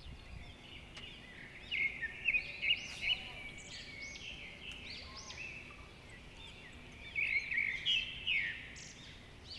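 Small birds chirping in quick runs of short, high, arching notes, in two bouts: about two seconds in and again about seven seconds in, over faint outdoor background noise.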